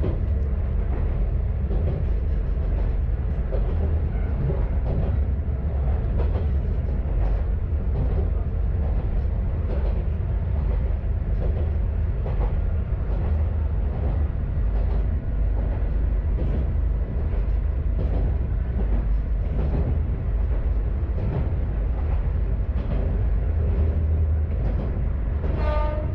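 Kanto Railway KiHa 532 diesel railcar running along the line: a steady low engine and running rumble with scattered clicks and knocks from the wheels and track. A brief high-pitched tone sounds about a second before the end.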